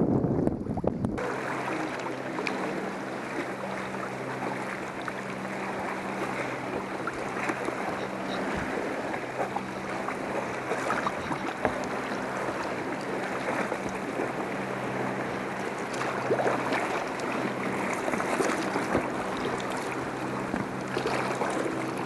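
Wind buffeting the microphone for about a second, then an abrupt change to an engine running at a steady speed under a steady rushing noise.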